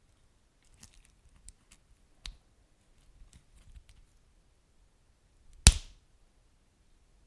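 Wood fire crackling in a fireplace: scattered small ticks and snaps, a sharper pop a little over two seconds in and a loud pop late on.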